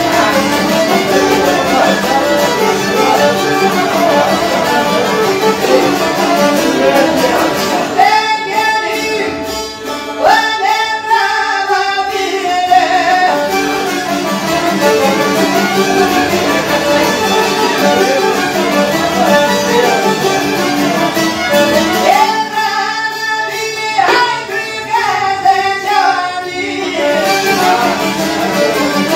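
Small folk ensemble playing live: violin, piano accordion and long-necked plucked lutes together. Twice the full accompaniment thins and a single melody line with pitch slides stands out for a few seconds before the band fills in again.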